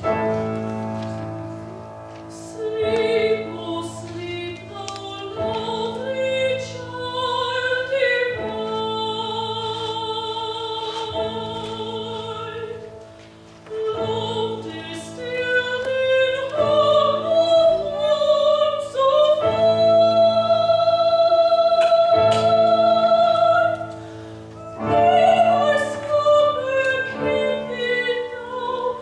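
Slow sacred song: a sung melody with vibrato and long held notes over piano accompaniment, dipping briefly between phrases.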